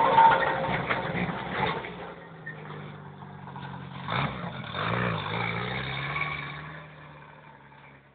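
ARO off-road vehicle's engine running as it pulls away, loud at first and fading as it drives off, with two brief rises in revs about four and five seconds in.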